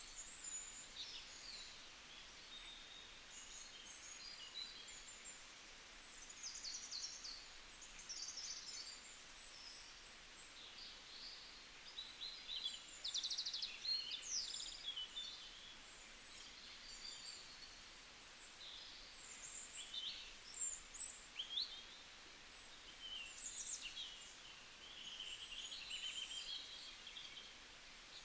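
Several small birds chirping and trilling, short high calls and rapid repeated notes overlapping throughout, over a faint steady background hiss. The calling is busiest around the middle of the stretch and again about two-thirds of the way through.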